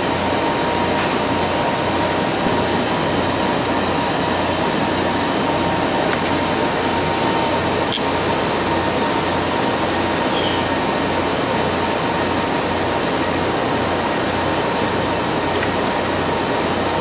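Steady rushing hiss and hum of a running Kern 400-watt CO2 laser cutting system, with a faint steady whine above it.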